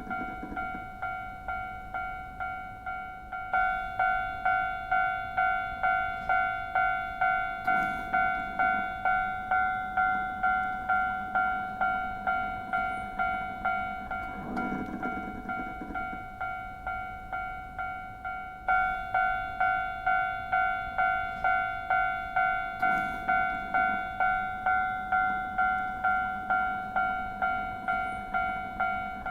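Japanese railway level-crossing warning bell, the electronic "kan-kan" alarm, ringing one steady pitch in even strikes a little under two a second. It gets louder a few seconds in and again about two-thirds of the way through.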